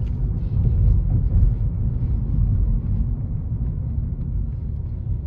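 Steady low rumble of tyre and road noise inside the cabin of a 2022 Nissan Leaf S electric car while it drives, with no engine sound.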